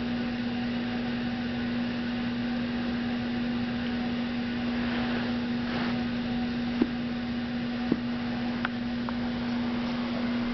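Steady hum over a constant hiss, broken by two short clicks about a second apart, two-thirds of the way through.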